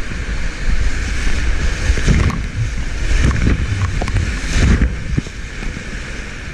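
Whitewater rapid rushing around a kayak, loud and steady, with water crashing over the bow and splashing onto the camera several times between about two and five seconds in. A low buffeting rumble from the water hitting the microphone runs underneath.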